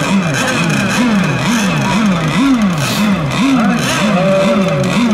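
Small two-stroke engine of a radio-controlled racing boat, its pitch rising and falling over and over about twice a second.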